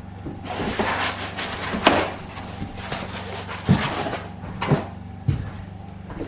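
Knocks and bumps of a heavy inverter being handled and shifted, with rustling near the start and about four sharp knocks after it.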